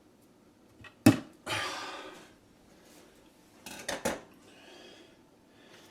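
Wire strippers working on thin electrical wire: a sharp metal click about a second in, a short scrape as the insulation is pulled off, then two more quick clicks a couple of seconds later.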